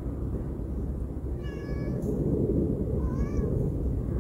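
Mother stray cat meowing to call her kitten: two short calls, about a second and a half in and again near three seconds, over a steady low background noise.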